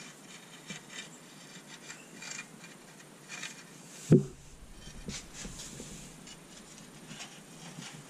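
Old, heavily corroded water-heater anode rod scraping and rubbing as it is drawn up out of the tank's top port, with soft scratchy noises throughout and a single knock about four seconds in.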